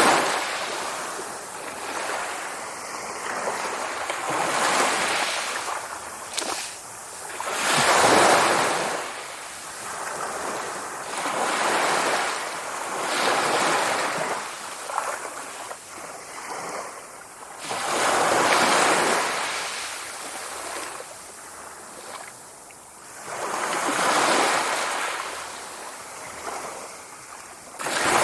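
Sea waves breaking and washing up, each surge swelling and fading every few seconds, the largest about a third of the way in and again past the middle.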